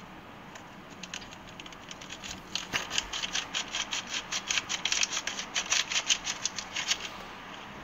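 A fork stirring instant noodles in a cup, scraping and clicking against the cup in a quick run of strokes, about five a second, that starts about a second in and stops near the end.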